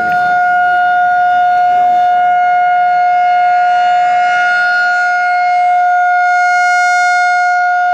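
Outdoor civil-defense warning siren sounding one loud, steady tone with no rise or fall in pitch. It is the siren's first-Saturday-of-the-month sounding, the routine monthly test.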